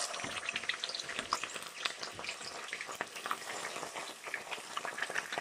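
Boneless chicken pieces sizzling in hot oil in a karahi, just dropped in to deep-fry: a steady, dense crackle of many small pops.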